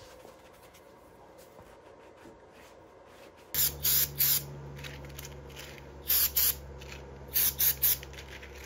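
An aerosol spray paint can hissing in about eight short bursts, in three quick groups, starting about three and a half seconds in. A steady low hum runs underneath the hisses. Before that there is only faint, quiet sound.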